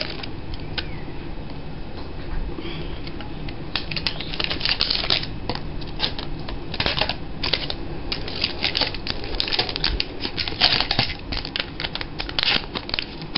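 Scissors cutting through thick bottle plastic to shape flower petals: irregular sharp snips and clicks, coming much thicker a few seconds in.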